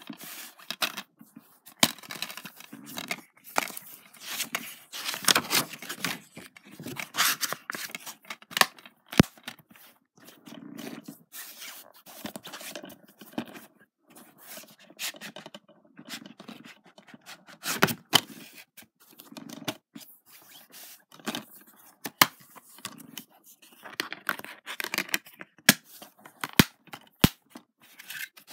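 Plastic DVD and Blu-ray cases being handled and shuffled on a blanket: irregular scraping and rustling with many sharp clicks.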